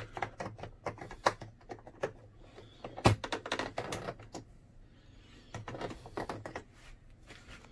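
Hard plastic refrigerator freezer control knob clicking and knocking against the control panel as it is pushed and turned onto its shaft, in several clusters of quick clicks with the sharpest knock about three seconds in.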